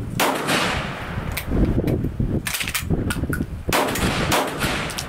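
Sjögren 12-gauge inertia-action semi-automatic shotgun firing three shots, the first about a fraction of a second in and the next two about a second apart near the middle. Each shot has a trailing echo.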